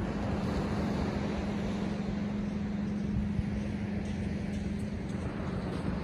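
Small waves breaking and washing up a sandy beach, with a steady rushing noise and wind on the microphone. Under it runs a steady low hum, which fades out about five seconds in.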